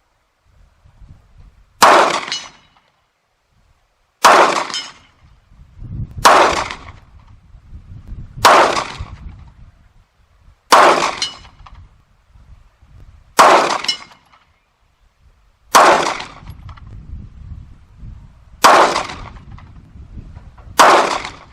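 Nine single 9mm pistol shots of slow aimed fire, about one every two to two and a half seconds, each followed by a short ringing tail, fired at a steel gong 100 yards off.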